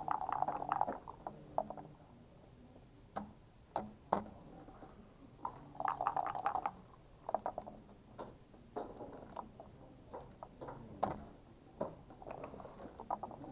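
Backgammon play: dice rattling in bursts, with sharp separate clicks of plastic checkers set down on the board and the game clock's buttons pressed between them.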